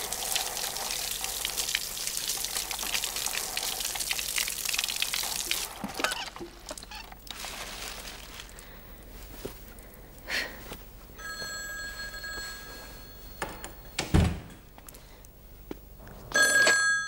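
A shower's spray of water runs and stops about six seconds in. Then a telephone rings twice, once midway and again near the end, with a single dull thump between the rings.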